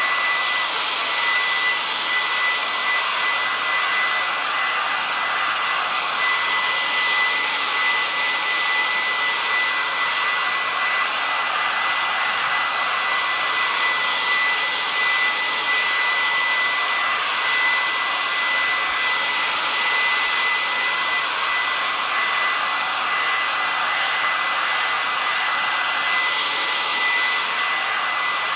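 Handheld hair dryer running steadily: a loud rush of blown air with a thin, high, steady whine from its motor.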